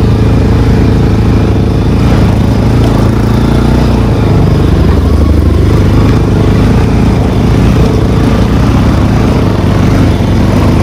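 Motorcycle engine running steadily while riding, with a continuous low rumble.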